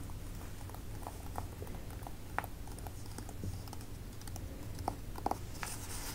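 Long acrylic fingernails tapping and clicking on a cardboard eyeshadow palette, in irregular light taps with a few sharper ones in the second half.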